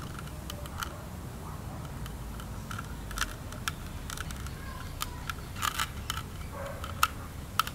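Scattered small plastic clicks and taps as hands press and shift a 3D-printed PLA bracket against the back of a plastic pool light housing, over a low, steady background.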